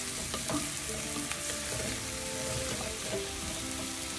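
White mushrooms and minced onions sizzling in butter and olive oil in a hot skillet, with a few sharp clicks of a utensil against the pan as they are stirred.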